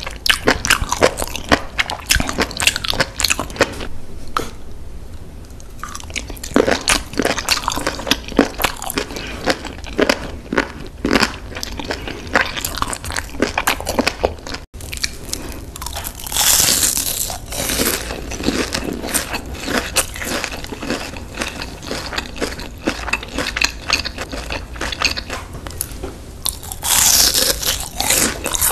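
Close-miked eating sounds: biting, wet chewing and crunching of spicy sauce-glazed food, then, after an edit, crisp crunchy bites of panko-breaded fried shrimp.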